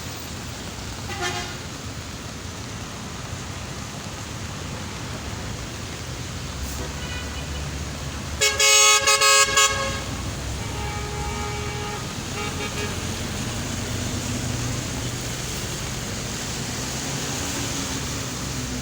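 Vehicle horn honking in a quick run of short toots about halfway through, with a few fainter, briefer horn toots before and after, over a steady low background rumble.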